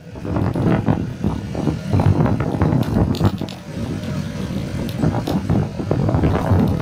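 Motorcycle running while being ridden, heard from the saddle: a loud, steady noise with a few short knocks.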